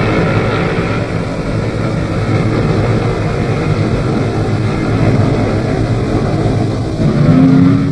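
Propeller aircraft engines droning steadily in flight, with the worn, noisy sound of an old newsreel soundtrack. A steadier, higher note joins near the end.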